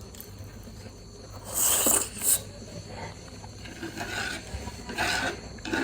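Close-miked eating sounds: crunching and mouth noises in short noisy bursts, loudest about one and a half to two and a half seconds in, with smaller ones after.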